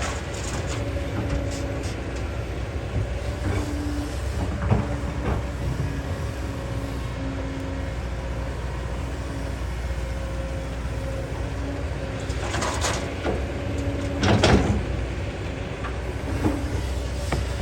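Kobelco hydraulic excavator's diesel engine running steadily with a constant whine, and a few metallic knocks and scrapes of the working bucket. The loudest scrape comes about fourteen seconds in.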